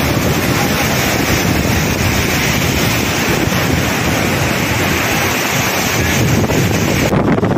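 Loud, steady rushing noise with no pitch, outdoors. Near the end it turns duller as the high end drops away.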